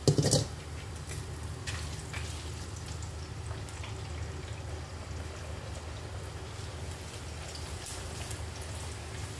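Cassava crackers frying in hot oil in a wok: a steady, fairly soft bubbling sizzle with faint scattered crackles as they are stirred. A brief loud knock right at the start.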